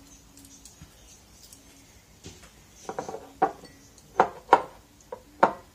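A run of sharp clinks and knocks of china, a cup handled and set against the counter. The strikes come unevenly, about six loud ones over the last three seconds.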